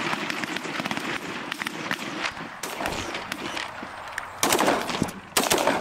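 A volley of shotgun blasts from several goose hunters firing at once, the shots coming thick and overlapping. The loudest blasts come in two quick clusters near the end.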